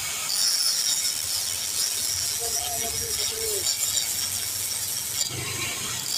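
Electric arc (stick) welding on steel: a steady crackling sizzle from the arc.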